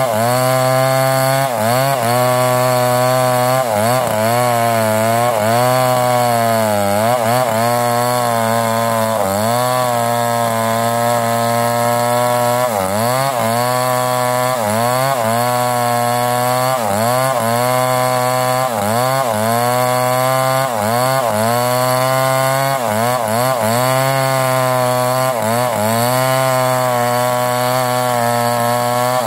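Chainsaw ripping lengthwise through a mango log to cut planks, running at high revs the whole time, its engine note dipping and recovering over and over as it works under the load of the cut.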